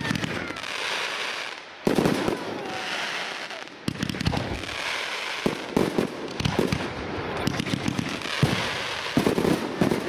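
Display firework shells bursting in quick succession: a rapid run of sharp bangs over a continuous crackling hiss, with louder bangs about two and four seconds in.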